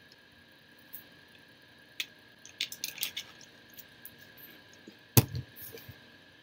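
Crinkling and clicking of plastic being handled, then one sharp thump about five seconds in, followed by a few lighter knocks.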